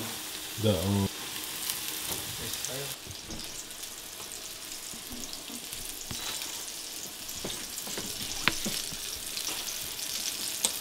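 Batter-coated oyster mushroom pieces frying in avocado oil in a small pan: a steady sizzle, with a few light clicks about two-thirds of the way through.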